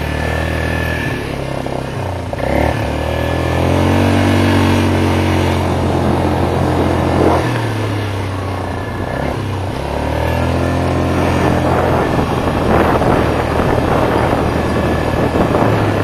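A motor vehicle's engine running at varying speed, its pitch shifting up and down several times.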